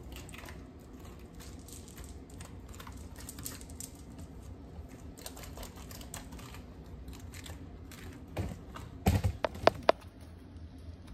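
Metal spoons scraping and clicking against pineapple flesh and rind as halved pineapples are scooped out. A run of small clicks, with a cluster of louder taps about nine seconds in.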